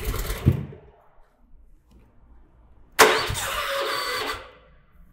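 Gas engine of a Landa MHC portable hot water pressure washer turning over in two short attempts, each about a second and a half and each cut off, without settling into a run: back pressure trapped in the pump and line locks the engine up on starting.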